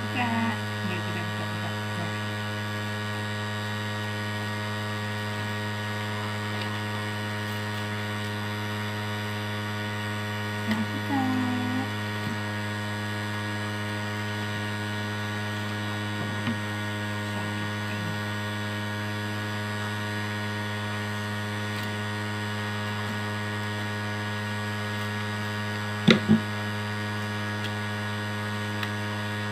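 Steady electrical mains hum, a low buzz with many overtones. It carries on unchanged, with two sharp clicks close together near the end.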